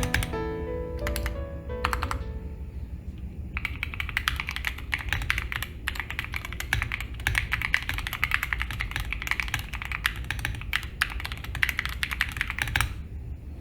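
Mechanical keyboard fitted with Gateron Luciola switches being typed on quickly: a dense, fast run of key clicks that starts about three and a half seconds in and stops shortly before the end. Light piano-like music fades out in the first two seconds.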